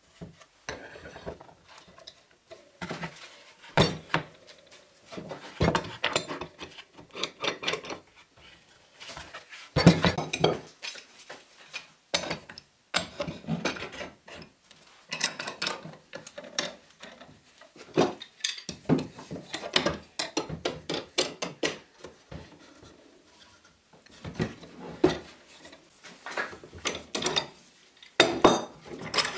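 Cast-iron G-clamps being set on a stack of wooden boards and screwed down by hand: irregular metallic clanks and knocks as the clamp frames and screw pads meet the wood and each other.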